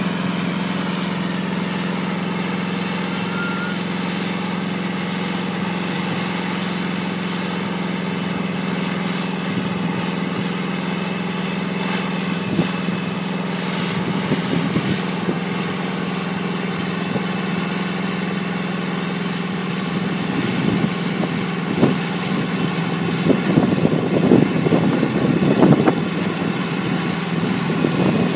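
Engine of a homemade helicopter running at a steady speed, a constant hum, while its main rotor turns. From about halfway on, irregular gusty buffeting grows louder and is strongest near the end.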